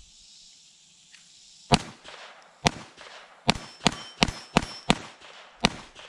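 Chiappa 1911-22 .22 LR pistol fired rapidly: eight sharp shots starting about a second and a half in, coming faster in the middle. A short metallic ring follows several of them as the bullets hit steel plate targets.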